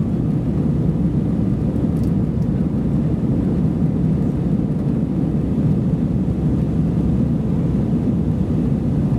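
Steady cabin noise of an Airbus A320-214 airliner heard from a rear seat: an even, unbroken low rush of CFM56 engine and airflow noise.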